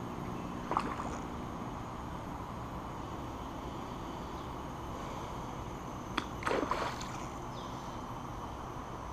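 A hooked fish splashing at the water's surface while it is played on a light spinning rod: a short splash about a second in, then a cluster of splashes around six to seven seconds, over a steady outdoor hiss.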